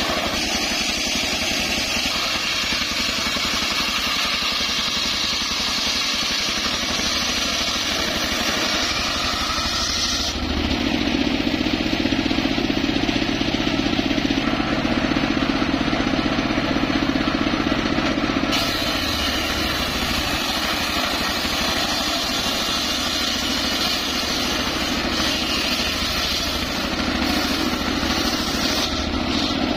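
The stationary engine of a circular-saw sawmill runs steadily while the large blade rips a teak log, a high rasping whine that drops out for several seconds about a third of the way in and returns before the end, leaving only the engine's steady hum in between.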